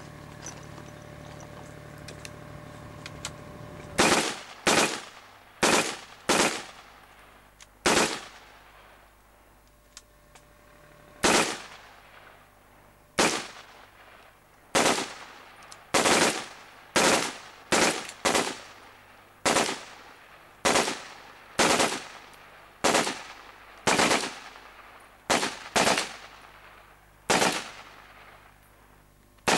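Military rifles firing single shots from a line of prone shooters: about two dozen loud cracks at irregular intervals, starting about four seconds in, each dying away in a short echo.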